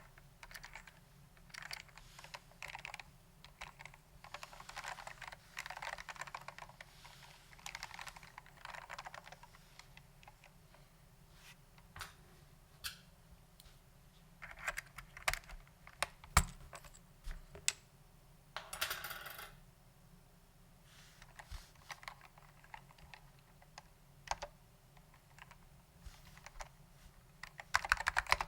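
Typing on an Apple Standard Keyboard M0116 with Alps SKCM Orange switches, lubed with dry lube: crisp key clicks in short bursts with pauses. Near the end it turns into fast, continuous typing.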